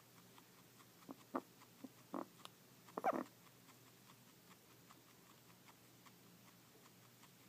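A pet animal making a run of short, strange noises while eating: about five brief sounds over two seconds, the last and loudest a pitched one about three seconds in, then only faint small clicks.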